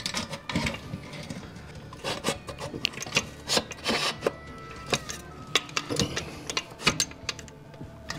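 Hand tools working on metal parts at a motorcycle's front wheel hub: irregular metallic clicks, knocks and rubbing as parts are fitted.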